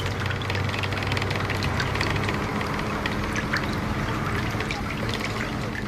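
Bus engine running with a steady low hum as it drives through floodwater, with water sloshing and splashing around the wheels, heard from inside the driver's cab.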